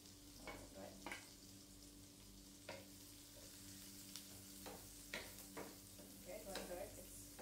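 Shallots and garlic frying in butter in a pan, sizzling faintly, with a wooden spatula scraping and clicking against the pan now and then as they are stirred.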